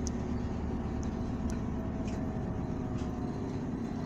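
A 2019 Isuzu Erga city bus on the move, heard from inside the cabin: a steady low rumble of its four-cylinder diesel engine and road noise, with a few faint ticks and rattles.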